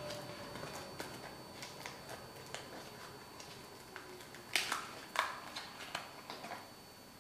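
Kiss-cut reflective vinyl being peeled by hand from its backing: scattered crackles and sharp snaps, the loudest a few about four and a half to five seconds in, dying away near the end.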